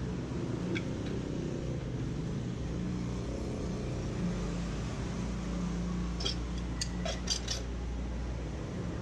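Light metallic clicks of screwdriver and screw work on a copier finisher: one early on, then a quick cluster of several about six to seven and a half seconds in. A steady low hum lies under them.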